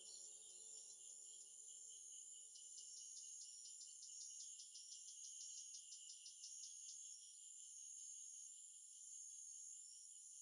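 Faint, high-pitched insect trilling, steady throughout, with a run of quick, evenly spaced chirps through the middle. A faint low tone underneath fades out about two-thirds of the way in.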